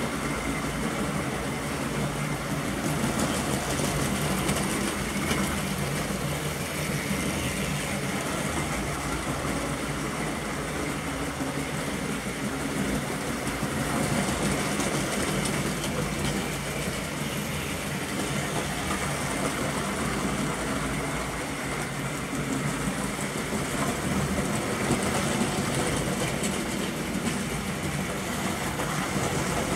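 Model train running on the layout: a steady motor hum and wheel rumble on the track, rising and falling slightly a few times as it goes round.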